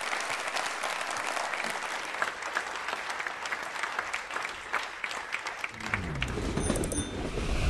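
Audience applauding, a dense patter of many hands clapping. About six seconds in, a low, deep swell comes in underneath, and the sound cuts off abruptly at the end.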